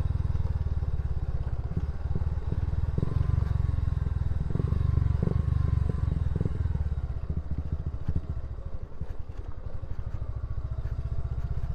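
Motorcycle engine running while riding, a steady low rumble. Irregular clattering knocks come in about three to seven seconds in.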